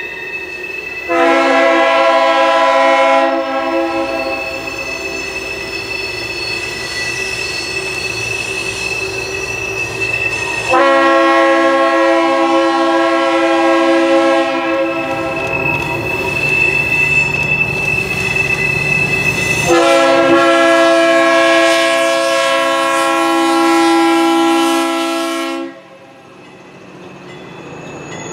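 Diesel freight locomotive's multi-note air horn sounding three long blasts, each longer than the last, as a coal train approaches. A thin steady squeal of wheel flanges on the curve runs under the horn, and the engine rumble and rail noise rise as the locomotive and hoppers roll past near the end.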